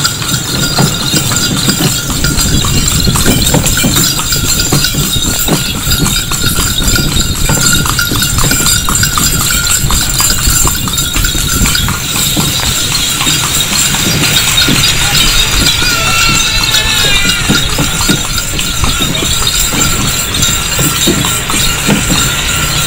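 Horse's hooves clip-clopping at a steady pace on a paved road as it pulls a dokar (horse-drawn cart), heard close from the cart over a steady low rumble.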